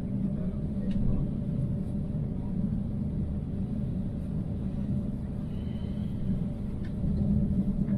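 Steady low rumble inside the cabin of an Airbus A350-900 taxiing on the ground after landing.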